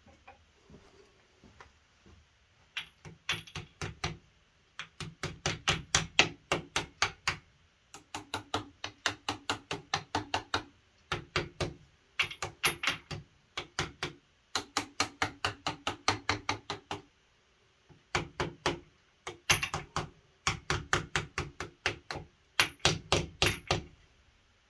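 Hammer blows tapping metal, fast and even at about five a second, in bursts of two to three seconds with short pauses between: the timing set being driven onto the crankshaft snout of a Mopar 360 V8.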